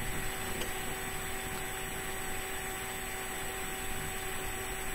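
Steady background hum and hiss of room tone, with faint steady whine tones and no distinct event.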